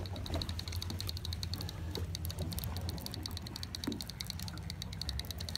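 Conventional saltwater fishing reel clicking rapidly in bursts as its handle is cranked, bringing in a hooked fish under load.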